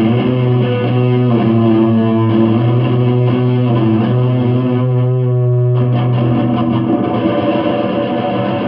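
Electric guitar played through an amplifier: a low note is held under a run of changing higher notes, and the low note stops about seven seconds in.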